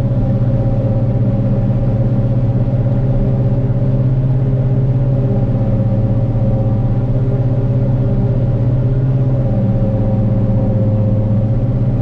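Heavy diesel engine of a forage harvester running steadily under load while chopping corn. The drone is loud and even, with no change in speed.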